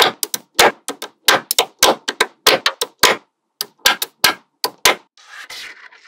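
Small neodymium magnetic balls clicking sharply as they snap onto a sheet of magnet balls, many clicks in quick irregular succession. Near the end the clicking stops and a softer rubbing and rattling follows as fingers press along the rows of balls.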